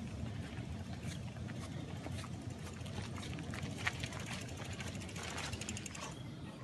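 Footsteps on a dirt forest trail and the rattle of a mountain bike being pushed uphill by hand, with a fast run of ticking from the bike near the end.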